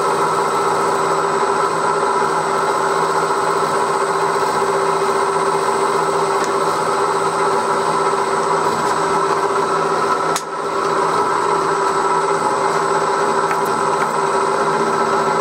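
1938 Bridgeport M-head milling machine running steadily with its end mill taking a roughing cut in the metal cylinder block, a constant hum and whine with several fixed tones. A brief click about ten seconds in.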